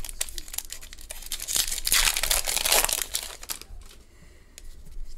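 Wrapper of a 2021 Bowman baseball card pack torn open and crinkled by hand, a crackling rustle with small clicks that is loudest about halfway through and then dies down.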